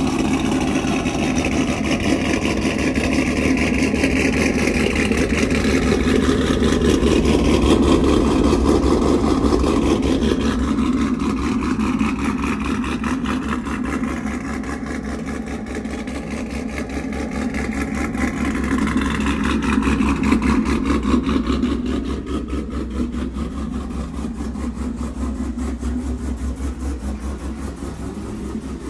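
GMC Sierra's LS V8 idling through a resonator-deleted exhaust with an X-pipe and Corsa Extreme mufflers: a steady, pulsing exhaust note that swells and eases a little in loudness.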